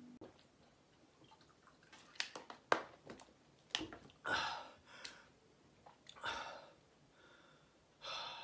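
A man breathing out audibly three times, short breathy sighs about two seconds apart, coming out of meditation. A few sharp clicks come just before them.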